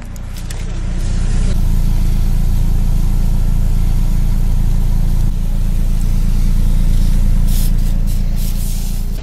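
Car-crushed can of carbonated energy drink spraying its contents out of the split with a steady hiss, over the low rumble of the car's engine idling.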